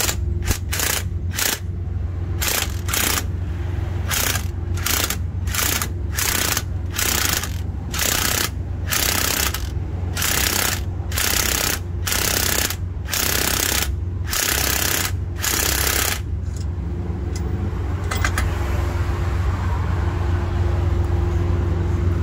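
Cordless impact wrench hammering in short bursts, about two a second, as it winds the release (caging) bolt of a truck's spring brake chamber to release the spring brake. The bursts stop about sixteen seconds in, leaving a steady low hum.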